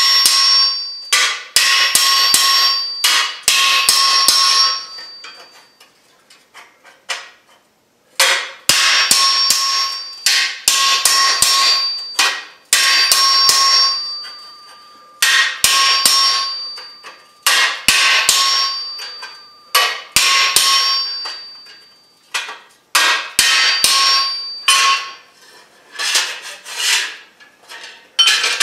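Hand hammer striking a hand-held chisel walked along a slit in a red-hot mild steel bar on the anvil, splitting the bar. It comes as quick runs of sharp blows, each leaving a metallic ring, broken by short pauses.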